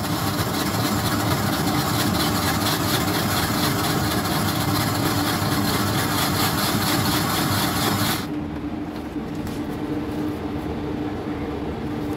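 Electric snow-cone ice shaver running steadily as it shaves ice onto a cup of flavoured shaved ice. It stops about eight seconds in, leaving a quieter steady hum.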